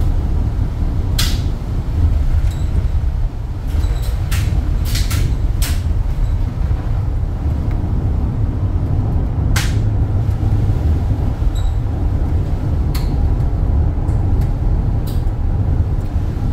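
Steady low rumble of a truck driving on a wet, slushy road, heard from inside the cab. Scattered sharp ticks and knocks break through it every second or few.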